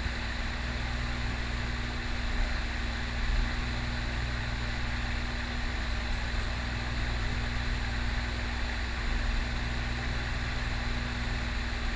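A steady low mechanical hum with a constant tone and an even hiss, unchanging throughout.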